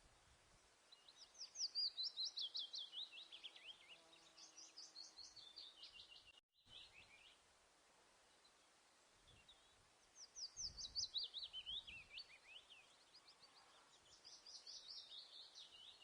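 A songbird singing: four fast trills of short down-slurred notes, each phrase falling in pitch over two to three seconds, with a pause of a few seconds between the second and third.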